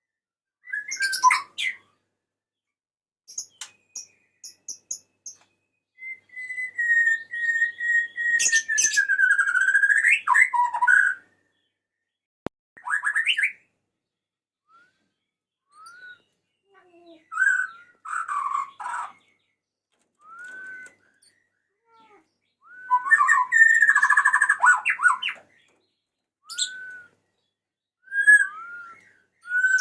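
Male white-rumped shama singing to call a female: varied phrases of clear whistles and short upslurred notes, broken by pauses. About six seconds in comes one long whistle that slowly falls and then rises, and a denser burst of chatter follows later on.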